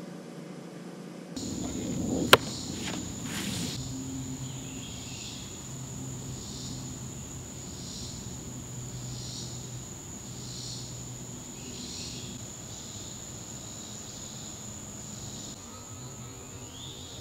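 Insects chirping in summer grass: a steady high-pitched trill with pulses about once a second. About two seconds in there is a single sharp knock, the loudest sound.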